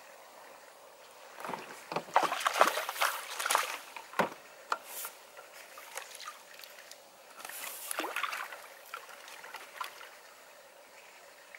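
Water splashing and sloshing as a hooked vimba bream is drawn over a landing net at the river's edge and netted. It comes in irregular splashes, loudest about two to four seconds in and again about eight seconds in.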